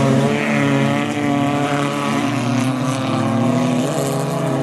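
Engines of several folkrace cars running hard at fairly steady revs as they race through a gravel corner, their overlapping pitches forming one continuous drone.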